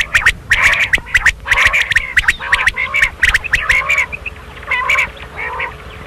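Common quail calling: a rapid, irregular string of short, sharp call notes and clicks, several a second, thinning out over the last couple of seconds.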